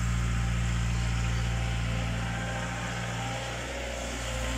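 Kato excavator's diesel engine running steadily, easing off a little in the middle and picking up again near the end.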